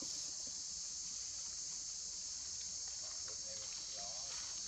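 A steady, high-pitched insect chorus drones on without a break.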